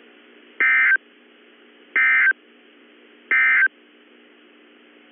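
Emergency Alert System (SAME) end-of-message data signal on a NOAA Weather Radio broadcast: three short, identical digital data bursts about 1.3 seconds apart, closing the severe thunderstorm warning. A faint steady hum from the radio channel runs underneath.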